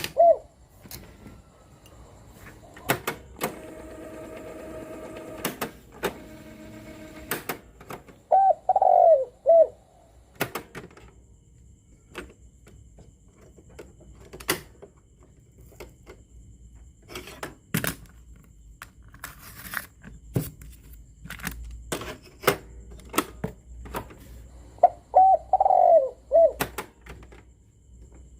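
Dove cooing, a short run of arching coos heard twice, among scattered sharp clicks and knocks. A steady humming tone sounds for a few seconds near the start.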